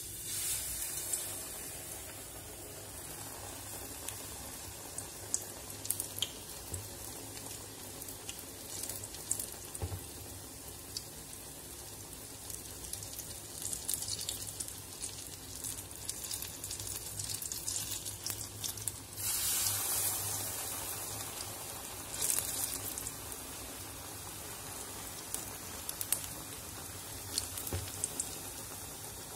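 Ulundhu vada (black gram fritters) deep-frying in hot oil: a steady sizzle with many small crackles. The sizzle jumps up sharply at the start and again about two-thirds through, as each lump of batter is dropped into the oil.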